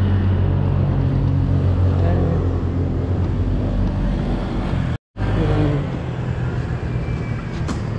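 Motor vehicle engine running steadily, with street traffic around it. The sound cuts out completely for a moment about five seconds in.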